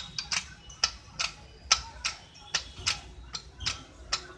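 Hydraulic trolley floor jack being pumped by its handle under a load: a sharp metallic click on each stroke, evenly spaced at about two to three a second.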